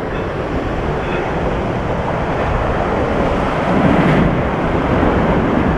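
Sea surf washing against the rocks, with wind rumbling on the microphone; a steady noise that swells a little after about four seconds.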